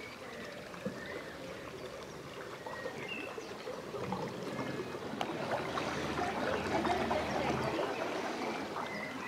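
Canal water lapping and trickling, with a few short high peeps from mallard ducklings in the first seconds. From about four seconds in a small motor-driven punt passes, its wake splashing louder over a low motor hum that stops near the end.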